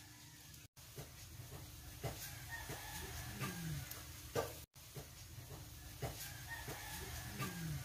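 Chickens clucking faintly in the background, with a few sharp clicks now and then.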